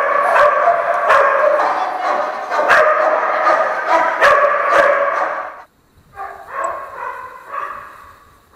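Many shelter dogs in their enclosures barking at once, a dense overlapping chorus of barks and yips. A little under six seconds in it cuts off abruptly, and a few fainter, scattered barks follow.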